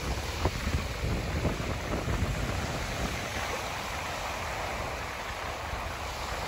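Small waves washing onto a sandy beach, with wind gusting on the microphone in low rumbles.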